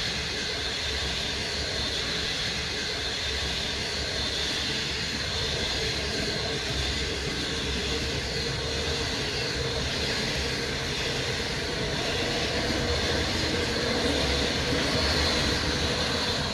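Steady running vehicle noise: a low rumble under an even rushing hiss, swelling a little near the end.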